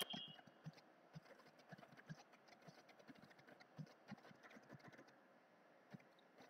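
Computer keyboard typing: faint, irregular key clicks as a sentence is typed. A short, louder noise sounds right at the start.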